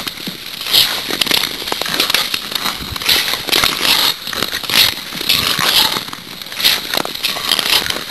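Ice skate blades scraping and gliding over clear black lake ice, with a hissing stroke about once a second and scattered sharp clicks and crackles.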